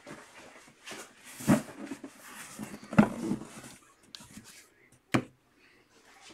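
Cardboard boxes being handled and moved on a tabletop, with rustling and three sharp knocks as boxes are set down: about a second and a half in, at three seconds, and just after five seconds.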